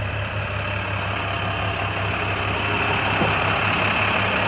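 2011 International 4400's DT466 inline-six diesel engine idling steadily, a low even pulsing hum.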